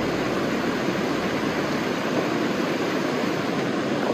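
Small waterfall on a mountain creek, water pouring steadily over rocks.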